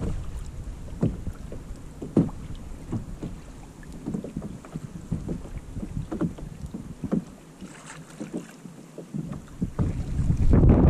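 Wind rumbling on the microphone over a kayak at sea, with irregular small knocks and slaps on the hull, and a stronger gust near the end.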